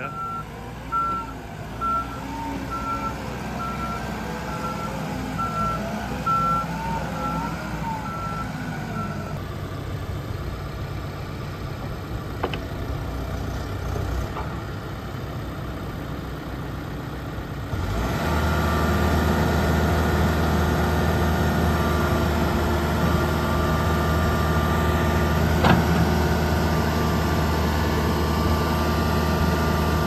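Case 580SN backhoe-loader's diesel engine running as the machine works, its reversing alarm beeping evenly for the first nine seconds or so. From about eighteen seconds in the engine runs louder and steady at higher revs while the backhoe digs, with a couple of sharp knocks.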